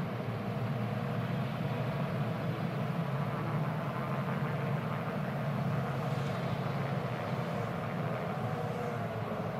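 A field of IndyCar open-wheel race cars with Honda V8 engines circling the oval in formation, their many engines blending into one steady drone.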